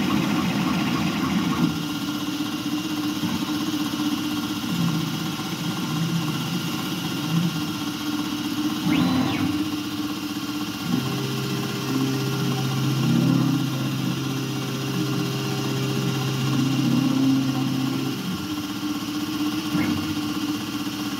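Langmuir Systems MR-1 CNC mill cutting a metal part under flood coolant: the spindle and cutter run steadily with the spray of coolant. About nine seconds in, a brief whine rises and falls; from about eleven to eighteen seconds a steadier hum joins.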